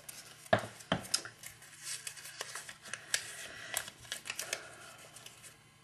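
Crumpled paper slip rustling and crinkling as it is drawn from a hat and unfolded, in irregular faint crackles with a couple of sharper crinkles about half a second and a second in.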